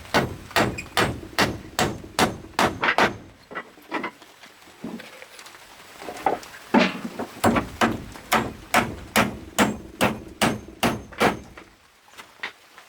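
Steady hammering, about two to three blows a second, in two runs separated by a pause of a few seconds.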